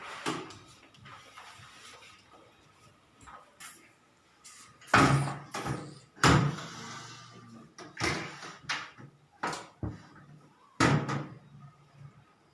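A series of sharp knocks and clunks from a microwave convection oven and its parts being handled, about a dozen in all; the loudest come about five and six seconds in and near the end.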